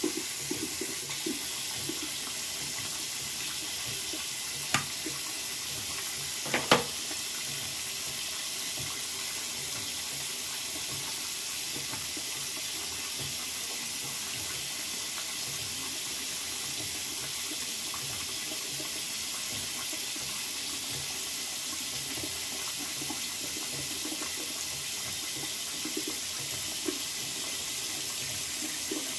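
Bathroom sink tap running steadily into the basin. Two sharp knocks stand out over it, about five and seven seconds in.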